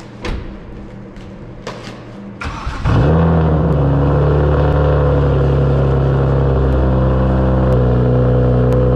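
A couple of short knocks, then about two and a half seconds in a BMW E92 335i's N54 turbocharged straight-six cranks briefly and starts. It settles into a loud, steady idle.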